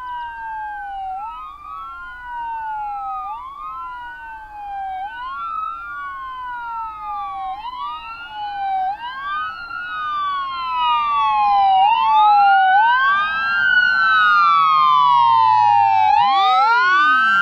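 Ambulance siren wailing, its pitch rising and falling about every two seconds, growing louder as the ambulance approaches.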